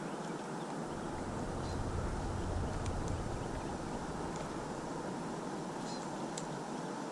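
Wind blowing across the camera microphone over open water: a steady rushing noise, with a stronger low gust from about a second in that eases off a couple of seconds later, and a few faint light ticks.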